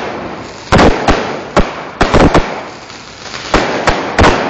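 Fireworks bursting in a rapid, irregular volley of about ten loud bangs, some in quick pairs, each trailing off in a fading echo.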